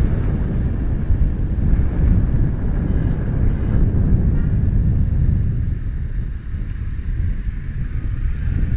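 Low, steady wind rumble on a motorcycle-mounted action camera's built-in microphone while riding. It eases off for the last few seconds.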